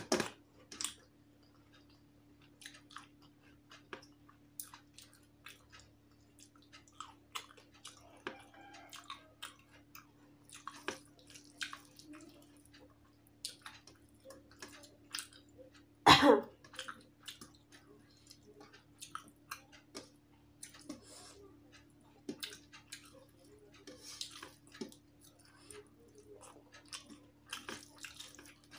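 Close-up wet chewing and lip-smacking of someone eating rice and curry by hand, with soft clicks of fingers working the food on a steel plate. One louder knock comes about halfway through, and a steady low hum runs underneath.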